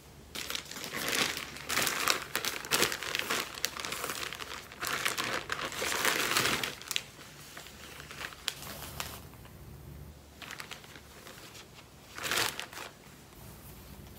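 Packaging crinkling and rustling as an item is pulled out and unwrapped, heavy for the first half, then softer handling with one more short crinkle near the end.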